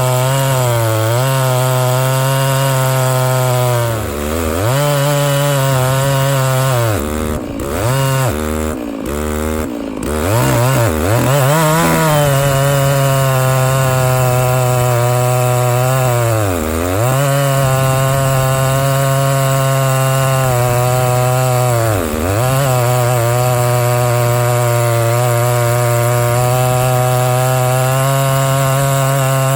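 Stihl MS660 two-stroke chainsaw at full throttle, ripping a plank lengthwise through a log with a 64-inch lo pro milling bar and chain. The engine note sags under the load and picks up again several times, most of all about a third of the way in.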